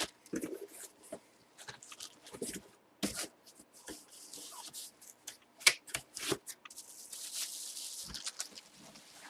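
Packaging being handled: crinkling and rustling with scattered sharp clicks and taps, the rustling densest through the middle.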